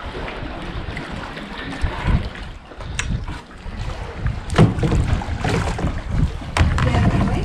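Canoe being paddled: paddle strokes in the water with a few sharp knocks, over wind rumbling on the microphone.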